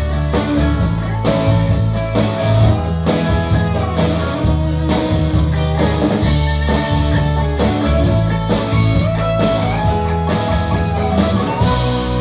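Live rock band playing an instrumental passage: a lead electric guitar plays a melodic line with bent notes over bass and a steady drum beat.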